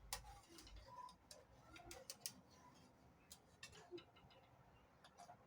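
Faint, scattered light clicks and taps from kitchen handling while the frankfurters are lifted out and dried with a cloth.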